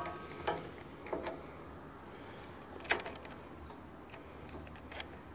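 A few separate sharp clicks and knocks on a riding lawn mower as it is worked on, the loudest about three seconds in.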